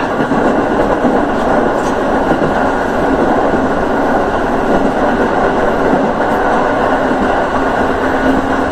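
A JR 205 series electric train running along the line: a steady rumble of wheels and running gear. A low steady hum comes in near the end.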